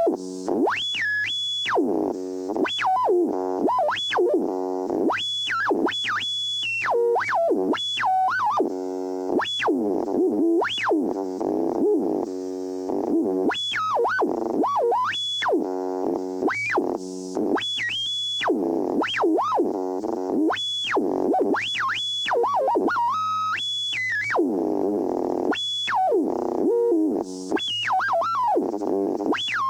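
Radio being tuned across frequencies: warbling, sweeping electronic tones and whistles that glide up and down again and again, with buzzy heterodyne squeals between stations.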